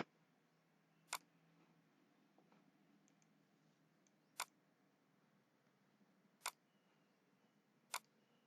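Computer mouse clicking: five single sharp clicks spaced one to three seconds apart, over near silence.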